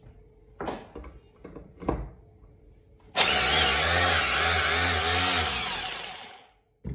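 Corded 220 V rotary hammer, handled with a few knocks, then switched on about three seconds in and run unloaded for about three seconds before the trigger is released and the motor spins down.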